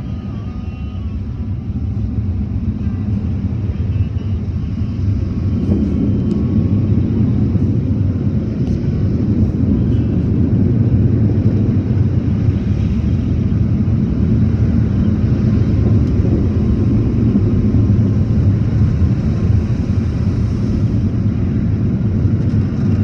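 Automatic car wash machinery heard from inside the car's cabin: a loud, steady low rumble that swells about five seconds in and then holds.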